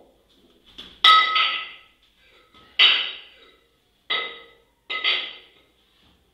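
A pair of steel competition kettlebells clanking against each other with a bright ringing tone as they are cleaned into the rack and settled at the chest: a loud knock about a second in, then three or four lighter ones, the last two in quick succession.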